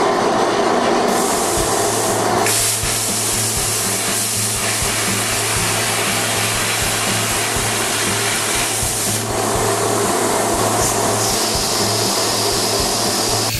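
Handheld plasma cutter cutting steel plate: a steady, loud hiss of the air-blown arc over a low hum, changing in tone a few times as the cut goes on.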